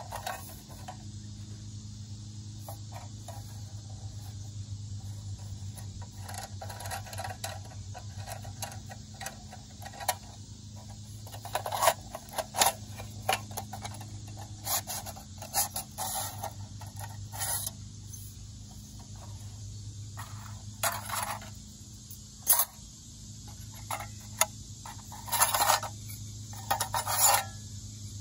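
Thin metal panels of a HotAsh mini rocket stove being handled and slotted together: irregular scrapes, rubs and light metallic clicks. They come sparse at first and grow sharper and louder from about halfway through.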